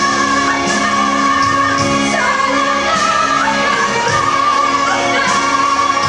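A woman singing long held notes with vibrato over backing music.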